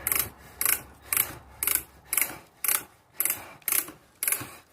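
Hand brace turning an auger bit as it bores through a workpiece: a rasping scrape repeated about twice a second in a steady rhythm.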